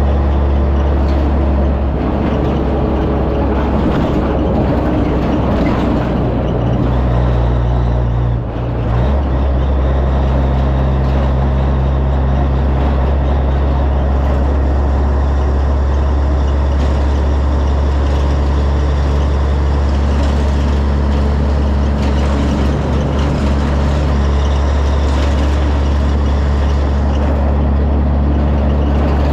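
Semi truck's diesel engine running steadily under way, with a low drone and a steady hum. Its note changes and briefly dips about eight seconds in.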